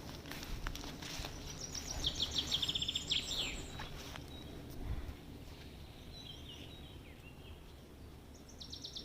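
A songbird singing in quick, high trills, about two seconds in and again near the end, over a steady low rumble.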